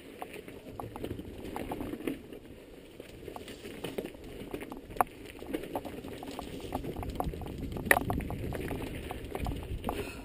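Mountain bike rolling over a rocky, gravelly trail: tyres crunching on stones with a low rumble and many scattered clicks and knocks from the bike. A sharper knock comes about 8 s in.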